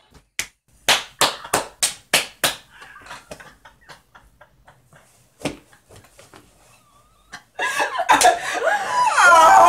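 Hand clapping, about eight loud sharp claps in two seconds, then scattered softer claps and taps. Near the end, women break into loud shrieking laughter.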